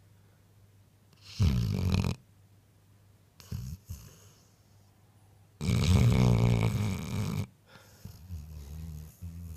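Dog snoring in its sleep: a few rasping snores with quiet pauses between them, the longest and loudest a little past halfway.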